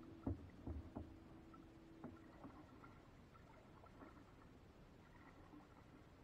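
A few soft knocks of a paddle against the hull of a small paddled boat in the first two seconds, then near quiet on the water.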